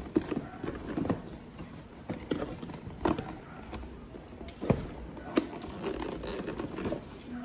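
A cardboard game box being handled and worked open: scattered light knocks and cardboard rubbing as the lid is shifted.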